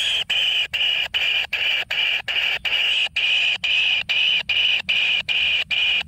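Kingfisher chick begging: a harsh, rasping call repeated in quick succession, about three a second with short breaks between.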